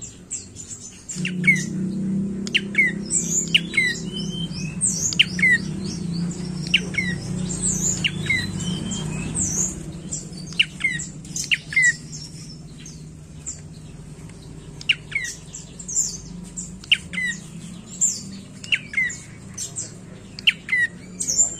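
Rufous-tailed tailorbird (prenjak coki) calling over and over: short, sharp high notes that drop in pitch, about one or two a second. A low steady hum sits underneath for the first half and then fades.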